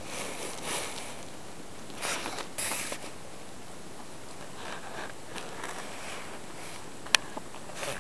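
Short bursts of rustling over a steady hiss, with one sharp click about seven seconds in.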